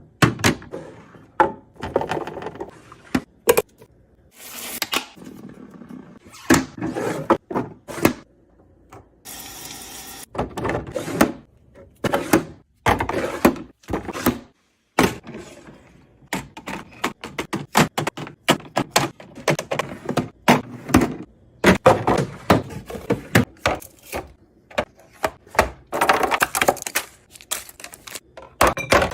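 Food containers and kitchen items being handled and set down while a fridge is organised: a long run of irregular knocks, clicks and clatters, with a few brief rustling, hissy stretches.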